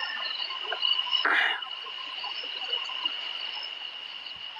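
Steady high-pitched chorus of calling frogs, a continuous trill with scattered chirps above it. A short loud hiss cuts in about a second in.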